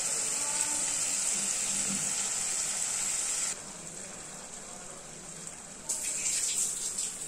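Onion-and-spice masala with pieces of dry fish sizzling in a metal kadai. The sizzle drops away about three and a half seconds in and comes back near the end with a few short scraping sounds.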